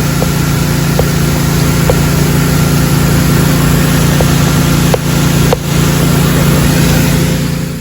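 Pressure washer running steadily, its engine droning under the hiss of the high-pressure water jet as it blasts dirt off aluminium enclosure screens, with a few light ticks; the sound cuts off suddenly at the end.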